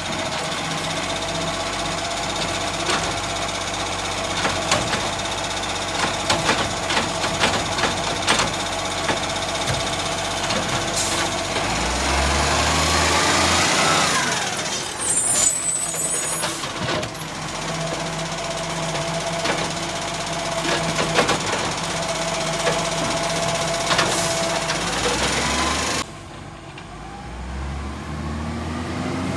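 Iveco side-loader garbage truck idling at the kerb while its hydraulic arm works: a steady whine over the engine, clunks and knocks of the grab and bins, and the engine revving up as a bin is lifted and emptied, followed by a brief air-brake hiss. Near the end the truck is farther off and quieter, then its engine rises again as it moves away.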